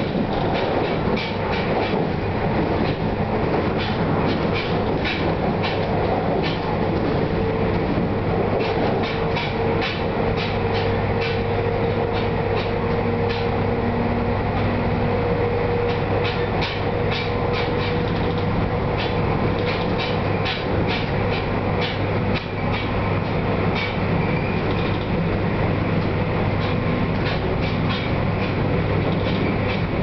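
Train ride heard from inside a passenger carriage running at speed: a steady rumble of wheels on rails, broken by runs of rapid clicking from rail joints. A faint steady whine holds for several seconds midway.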